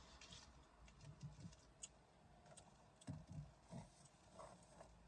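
Faint rustling and a few light clicks from a paper towel and a plastic food container being handled.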